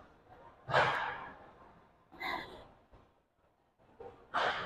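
A woman breathing hard from exertion during weighted sumo squat reps, picked up close on a clip-on mic: three heavy breaths, spaced a second and a half to two seconds apart.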